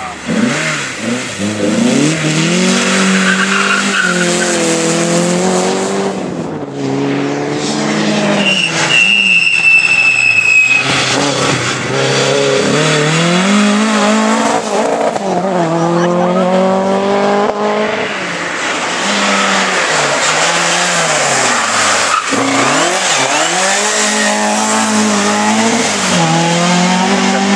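Rally car engines revving hard and changing gear, pitch climbing and dropping again and again as the cars drive the stage. About a third of the way in, a high steady squeal lasts about two seconds.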